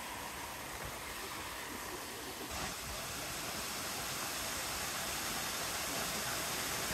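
Steady rush of the Liffey Falls cascade, growing slightly louder about two and a half seconds in.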